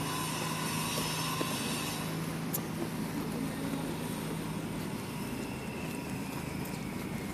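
Street traffic: a motor vehicle running with a steady low hum, a hiss of a vehicle passing in the first two seconds, and a faint falling whine in the second half.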